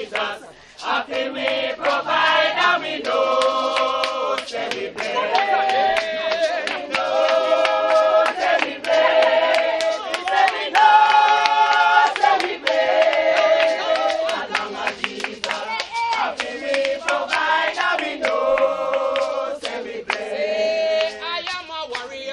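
A group of voices singing a gospel song together in long held notes, with some hand clapping.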